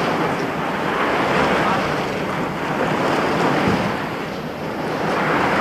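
Jacket fabric rubbing over the microphone of a camera carried in a pocket, a loud rustling noise that swells and eases.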